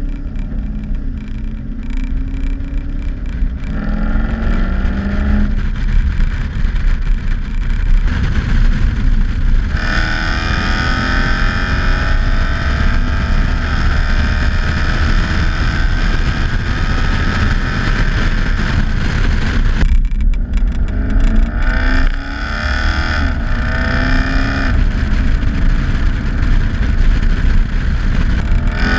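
Toyota 1UZ V8 engine and drivetrain of a car running under load, the engine note climbing in pitch and dropping back several times, with a steady whine above it; the sound drops away sharply about two-thirds of the way through and then climbs again.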